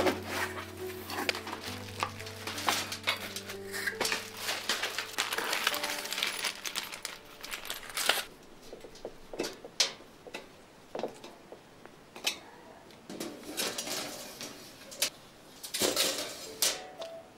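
Unpacking and handling an IKEA Lennart metal drawer unit: cardboard and plastic wrap rustling, with the metal frame and mesh drawers clinking and rattling in irregular clicks. Soft background music fades out in the first few seconds.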